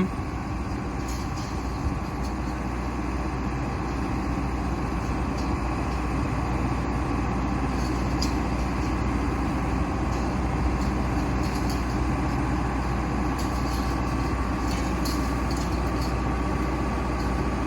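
Heavy machine's engine running steadily under load while its drive turns a 30-ft helical steel pile into the ground, with a constant low hum.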